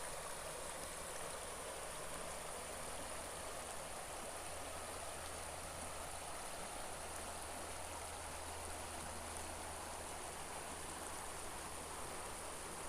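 Clark Fork River running high, a steady, even rush of flowing water.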